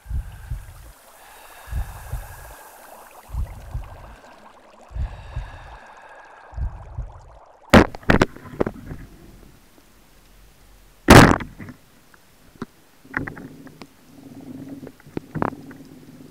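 Bubbling water over deep thumps about every second and a half, with a held tone above them. Then an underwater recording: two sharp clicks, one loud crack about eleven seconds in, and a faint low hum.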